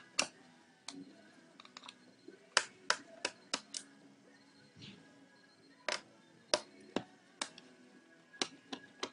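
About fifteen sharp clicks and taps, some in quick clusters, of a screwdriver and small screws against a laptop's plastic case as its screws are taken out. Faint background music underneath.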